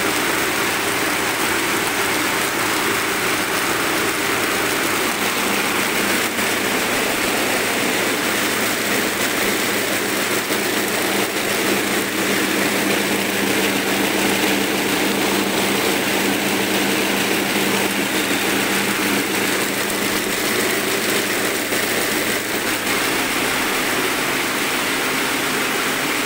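A 16-spindle high-speed braiding machine running steadily: a dense, even mechanical noise from its moving bobbin carriers and gearing, over a steady low hum.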